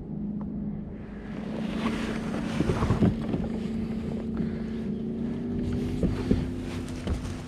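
A boat motor runs with a steady hum, with wind noise on the microphone building about a second in and a few scattered knocks.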